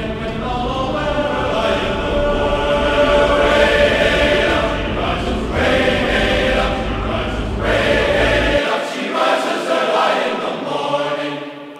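Music with a group of voices singing held notes, choir-like, over a low rumble that stops suddenly about nine seconds in.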